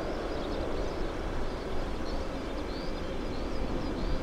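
Steady distant jet engine rumble from an Airbus A320neo rolling out on the runway after touchdown, with short, high bird chirps repeating about twice a second over it.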